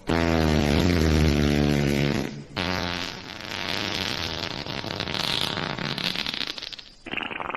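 Wet fart sound effects: first a loud, low, pitched fart lasting about two seconds, then after a short break a longer, rougher sputtering fart. Another fart starts near the end.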